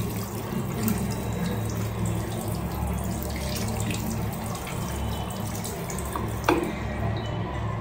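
Water running steadily from a tap into a sink, with one sharp knock about six and a half seconds in.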